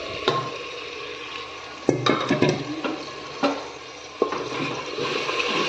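Green marinade being stirred into onions frying in oil and butter in a pan: a steady sizzle, with the spoon scraping and knocking against the pan several times.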